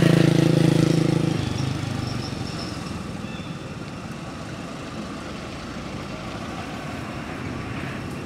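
A motor vehicle's engine drones loudly as it passes, then fades out about a second and a half in, leaving a steady hiss of road traffic.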